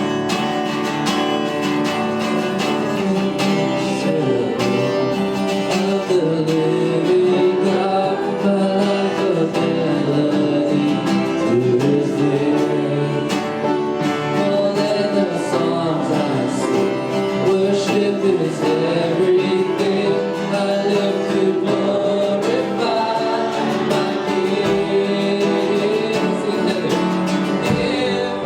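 Worship music: acoustic guitar strumming with voices singing along, steady throughout.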